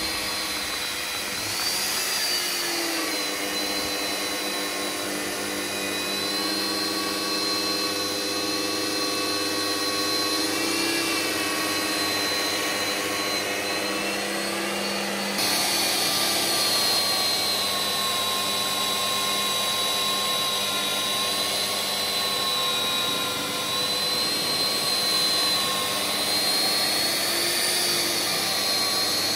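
Magnetic base drill's electric motor running steadily while drilling holes through a steel plate, its whine wavering slightly in pitch.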